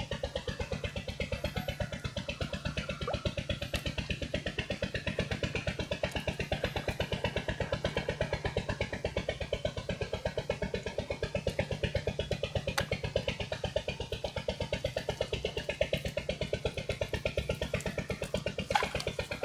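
Chainsaw engine running at a steady speed with an even, rapid pulsing. A single sharp knock sounds near the end.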